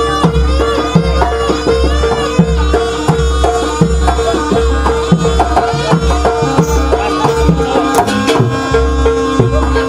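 Live East Javanese jaranan music: hand drums beat a busy rhythm over a regular low gong-like pulse, while a reedy wind melody wavers above a steady held note. A sharp crack sounds about eight seconds in.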